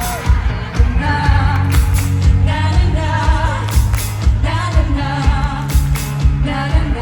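Live rock band playing with a steady drum beat while voices sing a wordless 'na-na-na' refrain over it, most likely the crowd singing along.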